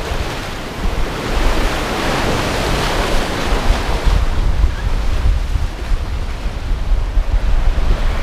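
Strong wind buffeting the microphone over the rush of waves and water around a sailboat at sea; the wash swells up about two to four seconds in.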